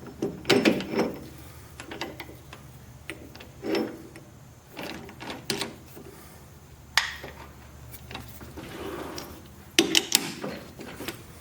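Metal stock and tools being handled: scattered, irregular clunks, clicks and short scrapes, with no machine running.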